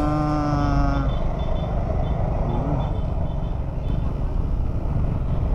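Ride noise from a Yamaha Aerox scooter moving in slow traffic: a steady low engine and wind rumble. A held musical tone fades out about a second in, and faint short high beeps repeat a few times after it.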